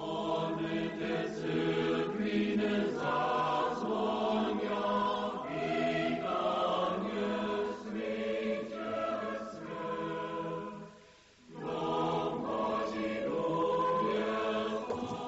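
A choir singing slow, held chords, breaking off briefly about eleven seconds in before going on.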